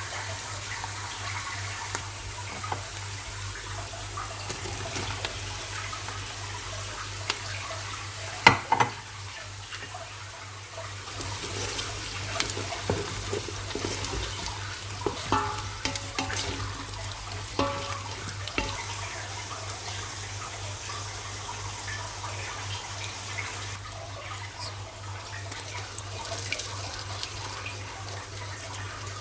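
Water running steadily from a tap into a kitchen sink, with scattered clinks and knocks of dishes and utensils; the sharpest knock comes about eight seconds in.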